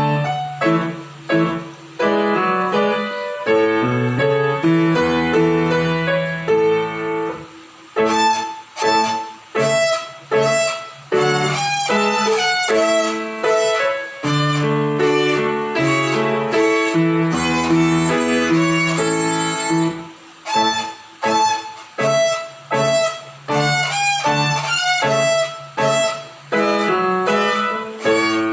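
Violin playing a simple melody note by note, with piano accompaniment underneath.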